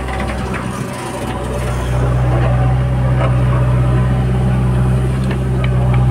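Diesel engine of a JCB 3DX backhoe loader running steadily, getting louder about two seconds in as it works under load lifting and tipping a bucket of soil into a trolley.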